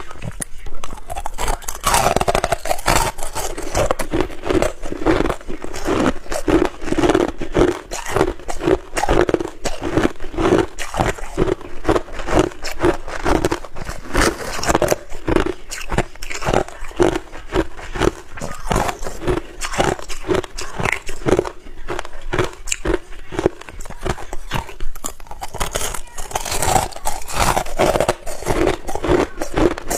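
Ice being bitten and chewed close to the microphone: continuous crunching and cracking in a steady chewing rhythm of about two chews a second.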